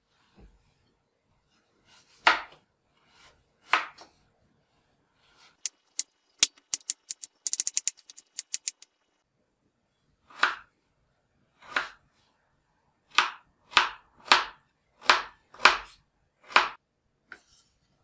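Kitchen knife cutting a peeled potato into cubes on a wooden chopping board, about ten separate strokes of the blade through the potato onto the board, most of them in the second half. A quick run of sharp clicks comes about six to nine seconds in.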